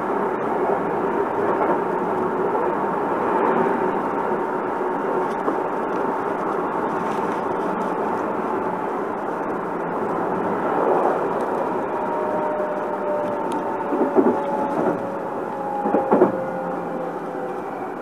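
Platform noise beside a Hankyu commuter train standing at the station: a steady rumble and hum. In the second half, two whines fall slowly in pitch, as of a train's motors slowing, and there are a few short knocks near the end.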